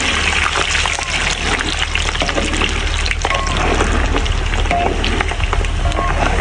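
Green mung bean mixture bubbling hard in a wok, stirred with a long metal ladle: a steady dense crackle of bursting bubbles with the ladle swishing through the liquid.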